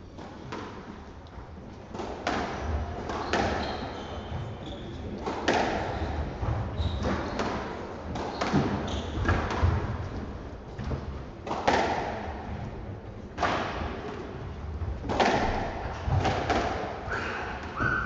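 Squash rally: the ball cracks off the rackets and the walls of a glass-backed court, a sharp strike every second or two. Brief high squeaks of court shoes sound between the shots.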